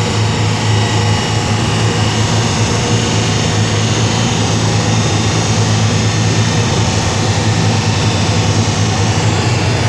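Nissan Skyline R32 GT-R's RB26 twin-turbo straight-six running at a steady speed on a chassis dyno: a loud, even drone with no revving.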